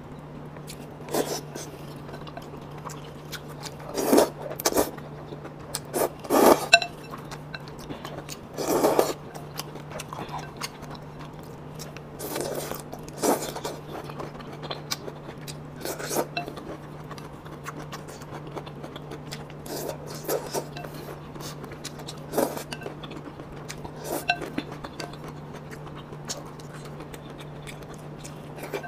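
Wooden chopsticks knocking, clinking and scraping against a ceramic soup bowl as food is picked out. The sounds come in short, irregular strokes, a few heavier ones in the first third, over a steady low hum.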